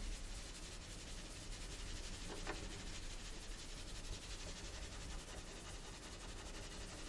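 Cello bowed softly, giving mostly an airy, noisy bow sound rather than a clear note, over a steady low drone. A brief sharper sound stands out about two and a half seconds in.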